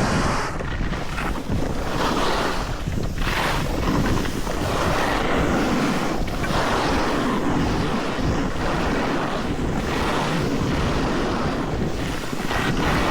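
Wind rushing over the microphone during a fast downhill run, mixed with the steady hiss and scrape of edges on snow.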